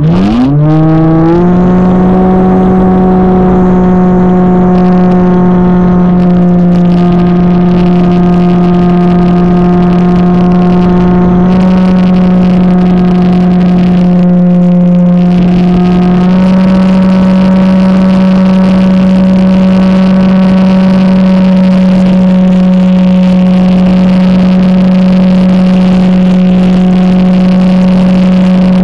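Motor and propeller of a radio-controlled FPV plane, heard through its onboard camera. It is a loud, steady drone that speeds up sharply in the first second, then holds its pitch, stepping slightly about 12 and 16 seconds in.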